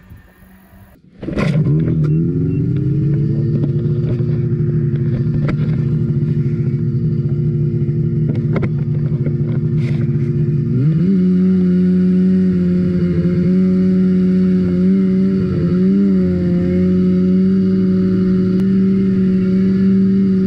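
Ski-Doo 600 RS race snowmobile's two-stroke twin engine running under way at a steady pitch, heard from the rider's seat. It starts abruptly about a second in and gets louder about halfway through, then holds steady.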